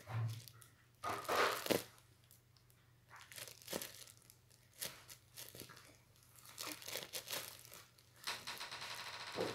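Plastic wrapping of a polyester-filled package crinkling in irregular bursts as a baby's hands and face press and grab at it, the loudest about a second in.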